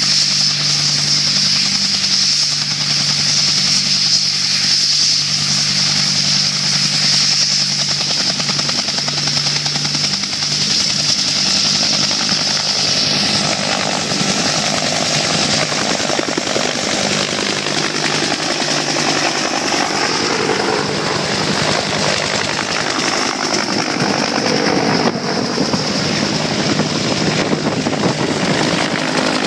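Bell AH-1 Cobra attack helicopters running: a steady turbine whine and hum at first, then from about 13 seconds in a rotor's chop as one lifts off and flies past low.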